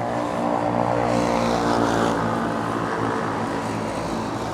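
A motor vehicle's engine droning past, loudest about one to two seconds in and then fading, over steady city traffic noise.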